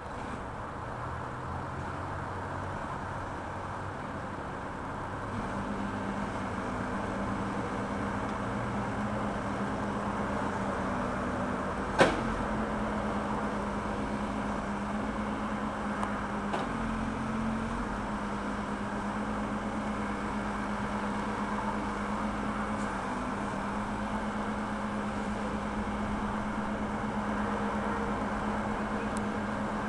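Backhoe loader's diesel engine running steadily, its pitch stepping up about five seconds in, with one sharp knock about twelve seconds in and a fainter one a few seconds later.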